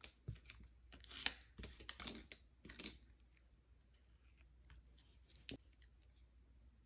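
Faint, short scratchy strokes of a scraper dragging nail polish across a steel nail-stamping plate, then a single sharp click a couple of seconds later.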